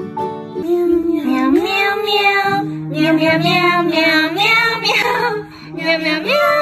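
A high, child-like singing voice, gliding and holding notes, comes in about a second in and carries on to the end.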